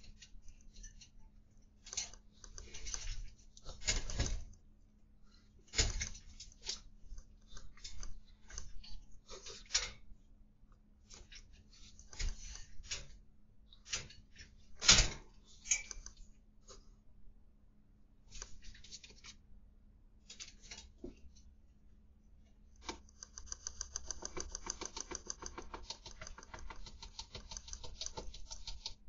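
A cat moving right against the camera: irregular scratchy rustles and sharp clicks of fur and body brushing the camera, over a steady low hum. Near the end the clicks turn into a dense run of rapid, even ticking.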